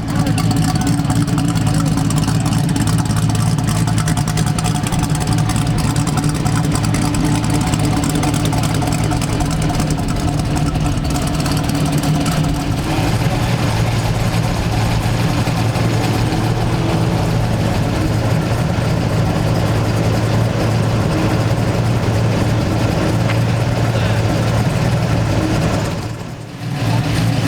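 Big-block V8 muscle car engine idling steadily, with a deep even note and no revving. The sound briefly drops away near the end.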